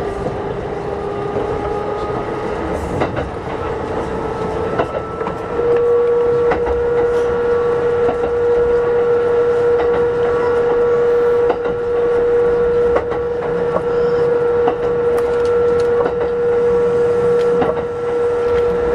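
Kintetsu 8600 series electric train running: a whine that rises in pitch over the first five seconds as the train gathers speed, then holds steady and louder, over a rumble with scattered clicks of the wheels on the rails.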